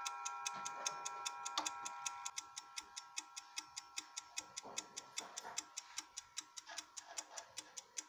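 Schatz mantel clock's platform escapement ticking quickly and evenly, about five ticks a second, while the ring of the chime rods dies away over the first two seconds.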